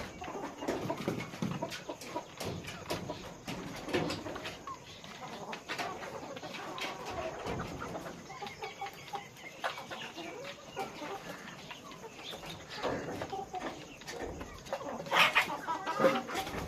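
A flock of farmed chickens clucking, with many short overlapping calls and a louder burst near the end.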